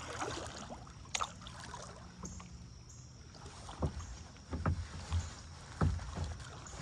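Kayak being paddled: paddle strokes in the water, with several short knocks and splashes, most of them in the second half.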